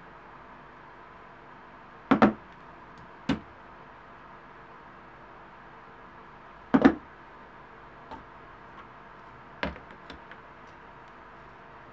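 Rotary leather hole punch pliers clicking as they punch holes in a leather belt strap: four sharp clicks, two of them doubled, then a few light ticks near the end.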